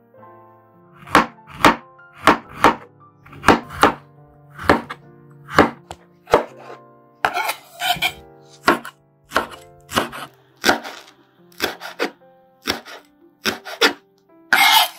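Large kitchen knife chopping red chillies and spring onion on a cutting board: a steady run of single, sharp strokes, roughly one to two a second. Soft plucked-string music plays underneath.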